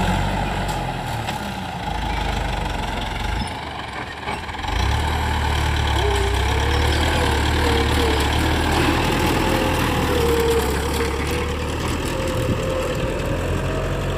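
TAFE tractor's diesel engine running steadily as the tractor pulls a tillage implement through loose soil. The engine dips briefly about four seconds in, and a wavering whine comes in from about six seconds on.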